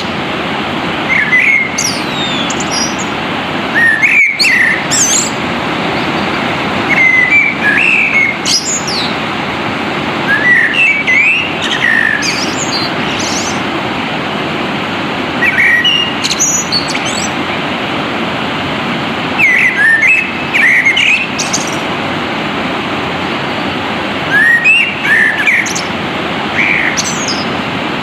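Wild birds singing short chirping phrases every few seconds over the steady rush of flowing water.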